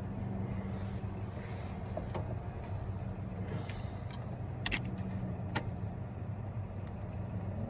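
A vehicle engine idling steadily, with a few sharp metallic clicks from work on the ignition lock and keys, the loudest a double click about five seconds in.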